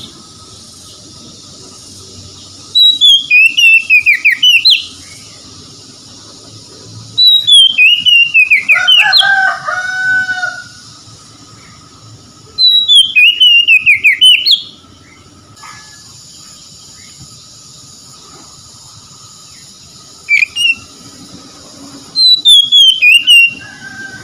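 Oriental magpie-robin singing loud, rapid phrases of descending whistles and chirps. Each phrase lasts about two seconds and they are repeated four times with pauses of a few seconds, plus a brief one a few seconds before the end. A softer, lower slurred whistle follows the second phrase.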